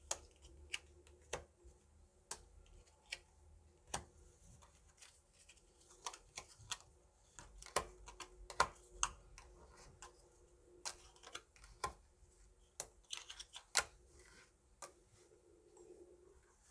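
Hwatu cards being laid and slapped down one after another: a series of sharp clicks at irregular intervals, several a second at times, with some louder snaps around the middle.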